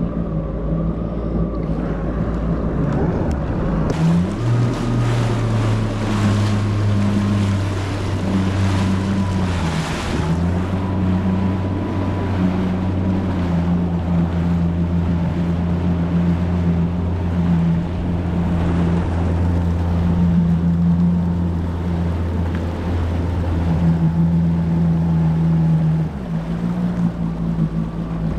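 Yamaha WaveRunner jet ski engine under way. It speeds up about four seconds in, with a rush of wind and water for several seconds, then runs steadily and eases off near the end.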